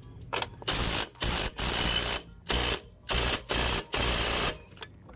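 Cordless brushless impact wrench hammering in a series of about seven short bursts, driving down the axle nut on a mower's front caster wheel.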